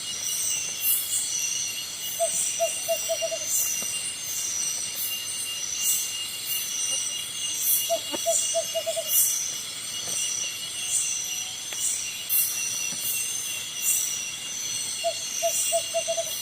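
Tropical forest insect chorus: a steady, shrill, high-pitched drone with a rhythmic pulsing over it, under a second between pulses. Three times, about six seconds apart, an animal gives a short run of five or six quick, mid-pitched notes.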